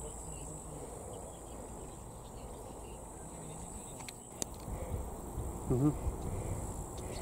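Insects trilling steadily and high-pitched in summer grass, with low rustling and a few knocks growing louder from about four seconds in.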